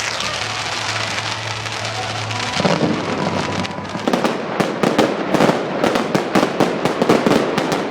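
Fireworks crackling: a rapid string of sharp pops that starts about four seconds in over a steady noisy din.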